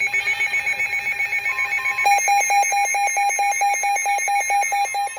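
Electronic alarm beeping from weather-alert receivers. A rapid high-pitched beeping runs for about the first two seconds, then a louder, lower beep repeating about five times a second takes over.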